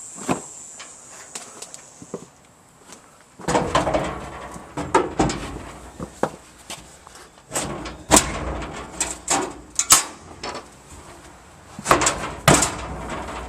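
Cellar bulkhead doors being slid onto their hinges and latched: a run of knocks, clanks and scrapes starting about three and a half seconds in, with the sharpest hits near 8, 10 and 12 seconds.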